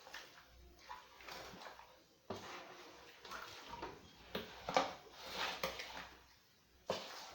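Kitchen pot sounds: watery splashing and sloshing with several sharp knocks and clatters, the loudest about halfway through.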